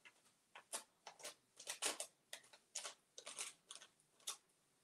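Sheet of decoupage paper being handled, crinkling in a string of faint, irregular crackles.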